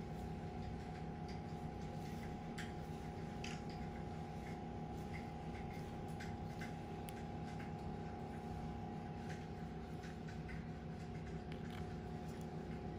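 A steady electrical hum with several faint, short clicks scattered through it.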